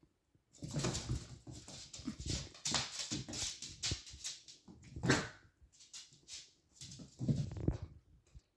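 A puppy's play noises: a busy run of short yips and whines, with the loudest one about five seconds in.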